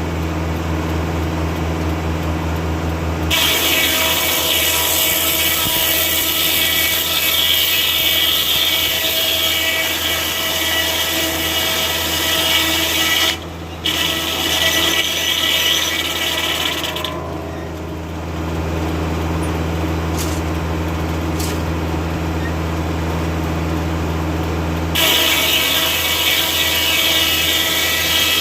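Foley-Belsaw circular sawmill blade cutting through an oak log, driven by a Kubota tractor's engine running steadily. The cut starts about three seconds in, breaks off for a moment midway, stops for several seconds while the engine keeps running, and starts again near the end.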